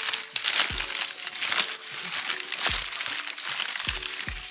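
Crumpled newspaper packing crinkling and rustling as it is handled and pulled out of a cardboard box, over soft background music with a low beat.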